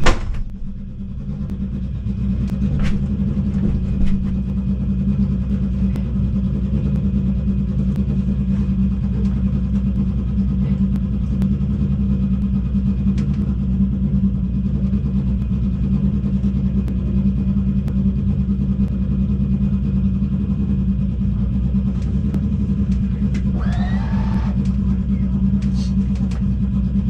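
Steady low mechanical hum inside the cockpit of a stationary electric race car, opening with a sharp knock. A brief rising whistle-like sound comes near the end.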